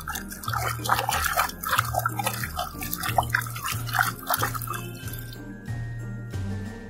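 A hand splashing and swishing a plastic toy crocodile through muddy water in a plastic tub, washing it; the splashing stops about five and a half seconds in. Background music with a steady bass line runs under it.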